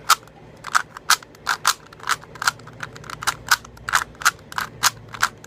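Plastic 3x3x3 Rubik's Cube being twisted layer by layer: a quick run of sharp clacks, about three or four a second, as the reassembled cube turns.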